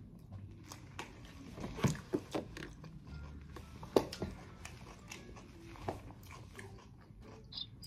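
A person chewing chicken lo mein close to the microphone: wet mouth clicks and chewing, with the sharpest clicks about two and four seconds in.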